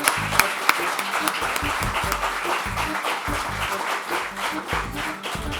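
Music with a steady beat playing over audience applause.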